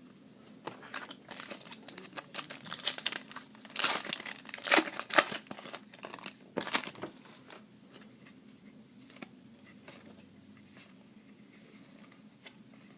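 Foil trading-card pack wrapper crinkling and tearing open in irregular bursts, loudest about four to five seconds in, stopping about seven seconds in.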